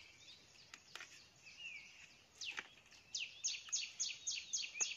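Wild birds calling: scattered high chirps, then about three seconds in a bird starts a fast, even run of sharp falling notes, about six a second, that goes on to the end. A few faint clicks sound in between.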